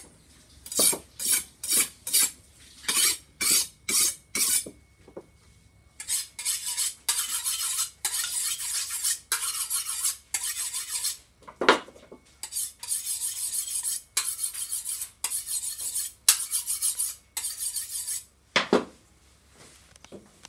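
Steel knife blade scraped in repeated sharpening strokes: first a quick run of short strokes, then after a brief pause longer strokes at about one a second, with two sharper knocks among them.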